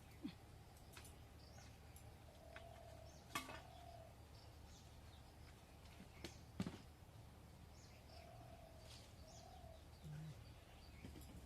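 Near silence: faint bird chirps and calls over a quiet background, with a few short clicks, the loudest about three and a half and six and a half seconds in.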